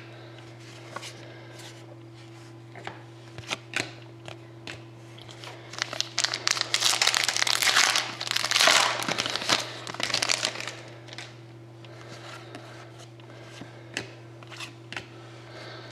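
Foil wrapper of a hockey card pack being torn open and crinkled, a dense run of crinkling for about five seconds in the middle, with scattered light clicks and taps of cards being handled before and after. A steady low hum runs underneath.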